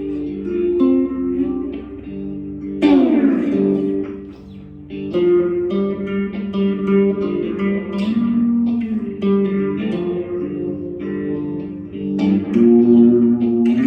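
Guitar played with a slide: plucked, sustained notes, with a pitch slide down about three seconds in and a slide up near the end.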